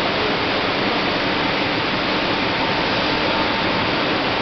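Steady rushing hiss of an aseptic IBC liner filling machine and its plant, even and unbroken throughout.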